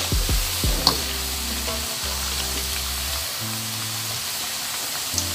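Kuping gajah dough spirals deep-frying in hot oil, a steady sizzle and bubbling. The oil is still bubbling hard, so the cookies are not yet crisp; they are done once the oil goes calm.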